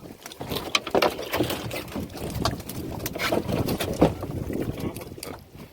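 Small fishing boat at sea: irregular knocks and splashes against the hull, with wind on the microphone.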